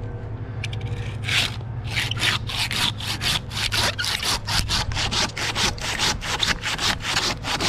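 Silky handsaw cutting through white pine in quick back-and-forth strokes, about three a second, as it makes a drop cut. The strokes start about a second in.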